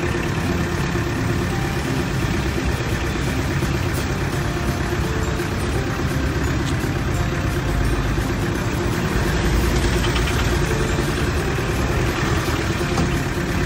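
Jeepney's engine running steadily, heard from on board the open-sided vehicle as it travels, with the rumble and hiss of the road and passing traffic.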